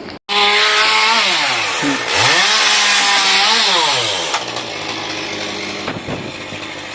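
Petrol chainsaw cutting wood. The engine pitch sags as the chain bites and climbs again as it frees, twice, then settles to a lower, steadier run after about four seconds.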